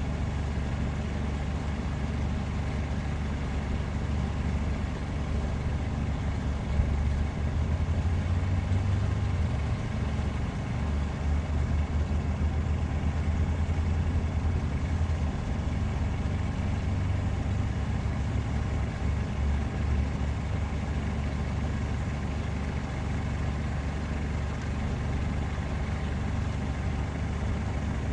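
A motor running steadily with a continuous low drone, fuller for a stretch from about 8 to 15 seconds in.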